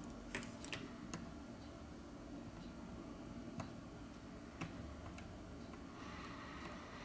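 A handful of faint, scattered clicks as steel tweezers tap against a phone's metal mid-frame and a flex cable while the cable is being positioned, over a low steady hum.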